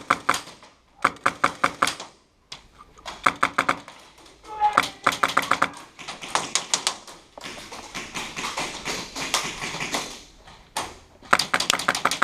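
Airsoft guns firing in rapid bursts of sharp clicks, several bursts of a second or two each with short pauses between.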